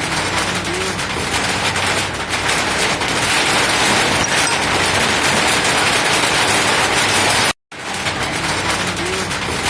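Drizzling rain falling in a steady, dense patter. The sound cuts out for a moment about seven and a half seconds in, then the same stretch of rain starts over.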